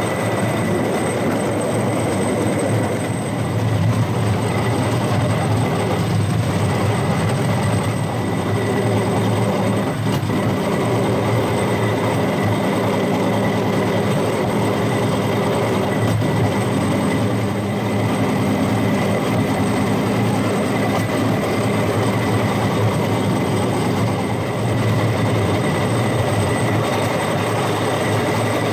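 Rail-mounted golf cart running steadily along railway track, a constant low motor hum mixed with the noise of its wheels rolling on the rails and a few faint clicks.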